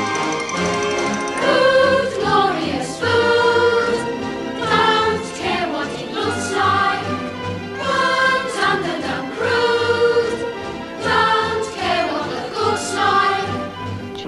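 Background music: a choir singing a song in phrases of a second or two, with accompaniment.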